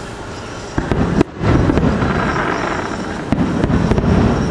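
Aerial fireworks exploding: a few sharp bangs about a second in, then a loud, continuous din of bursts, with more sharp bangs near the end.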